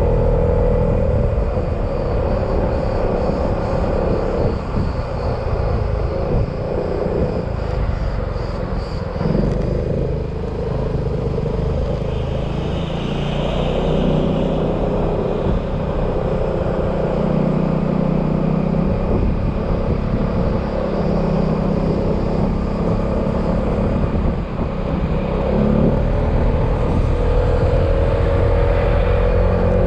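Yamaha XMAX scooter's single-cylinder engine running under way, heard from the rider's position with road and wind rumble. The engine pitch climbs as it accelerates near the start and again near the end, easing off in between.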